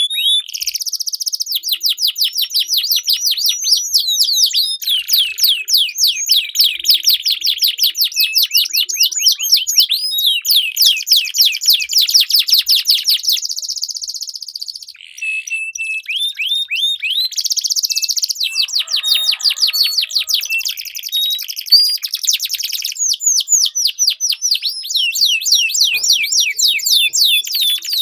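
Domestic canary song: long, fast rolling trills and rapid repeated chirps in a steady stream. There is a short break about fourteen seconds in.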